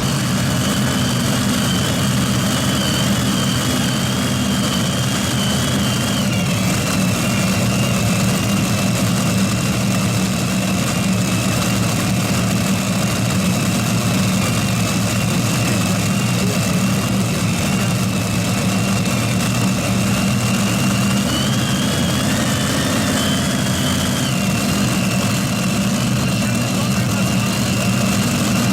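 Gas-turbine engines of a heavy-modified pulling tractor running steadily, a high whine over a low drone. The whine wavers a little in pitch about two-thirds of the way through.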